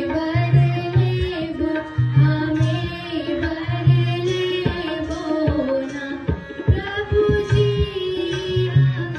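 Indian dance song: a sung melody over a repeating drum rhythm, with a run of sharper, quicker drum strokes in the middle.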